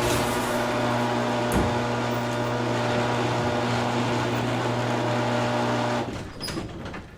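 Garage door closing: a steady mechanical hum with a single click about one and a half seconds in. About six seconds in it dies away with a few rattles and clicks.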